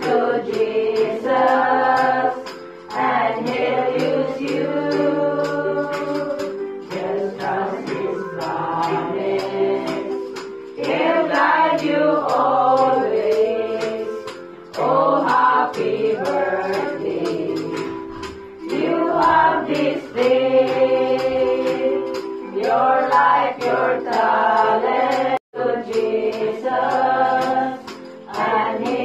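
A group of voices singing a gospel song together in phrases, over sustained instrumental accompaniment. The sound cuts out for an instant near the end.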